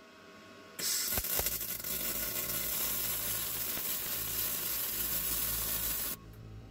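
Abrasive blasting cabinet: a compressed-air blast nozzle firing grit at a rusty steel axe head, a loud steady hiss that starts sharply about a second in and cuts off sharply near the end.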